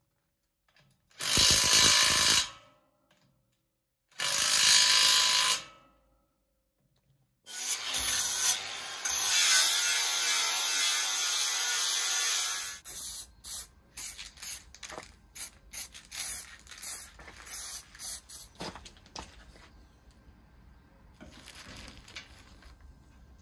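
Cordless 18 V drill driving the bolts that hold a caster's mounting plate to a steel frame, in two short bursts. Then a small angle grinder runs against the steel frame for about five seconds, followed by a run of short knocks and clicks.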